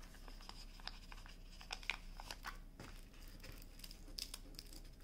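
Faint crinkling of the small plastic bags of round diamond-painting drills being handled, with scattered light clicks.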